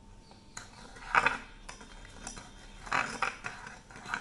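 Metal spoon scraping and clinking against a bowl while mixing butter with ground sugar, in irregular short strokes, the loudest about a second in.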